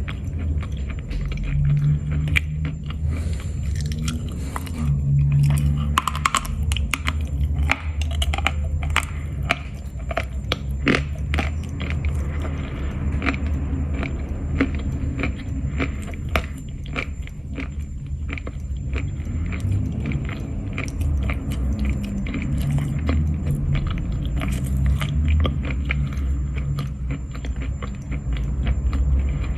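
Dry lumps of Khrapovsky natural chalk being bitten and chewed: a continuous dry crunching made of many sharp cracks and crackles over mouth chewing sounds.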